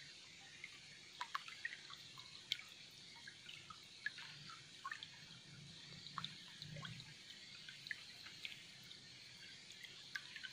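Faint, irregular dripping and plinking of small water drops, several a second, over a low steady hiss.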